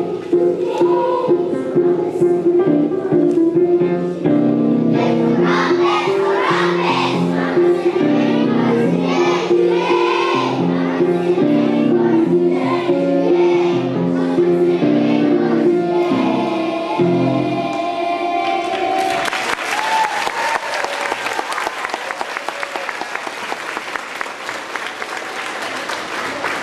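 A group of young children singing a song together with musical accompaniment. The song ends about two-thirds of the way through, and an audience applauds, the clapping slowly dying down.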